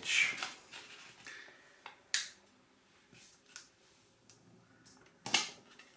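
A sheet of standard 15 cm origami paper being folded by hand: a soft rustle as it slides, then scattered crisp paper clicks as the crease is pressed flat. The two loudest come about two seconds in and near the end.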